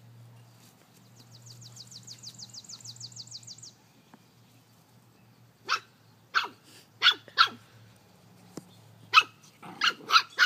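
Puppies barking in short, sharp yaps while play-fighting: four single yaps about halfway through, then a quicker run of yaps near the end. Before them, a rapid high-pitched trill runs for a couple of seconds.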